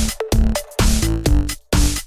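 Background electronic dance music with a steady, chopped beat.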